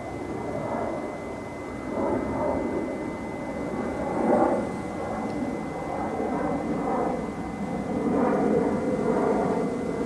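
Rumble of passing road traffic that swells louder a few times, loudest about four seconds in.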